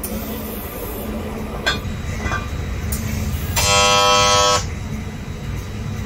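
Gas welding torch burning on an aluminium oil sump, a steady rushing noise. About halfway through, a horn sounds loudly for about a second.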